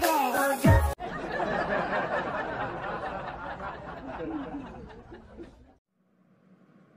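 A song with singing cuts off abruptly about a second in, followed by laughter from several people that fades out over the next few seconds.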